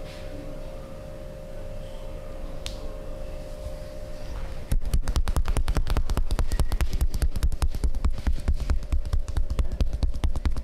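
Rapid percussive massage: hands slapping and chopping on the body in a fast run of sharp strikes, many a second, starting suddenly about four and a half seconds in. Before it, a steady faint hum.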